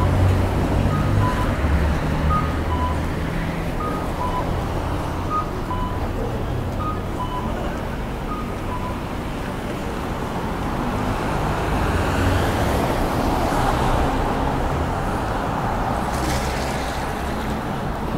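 Japanese pedestrian crossing signal sounding its electronic cuckoo call, a higher note then a lower one repeating about every second and a half, which tells pedestrians the walk light is on; it stops about halfway through. Street traffic runs underneath, with a vehicle going past in the second half.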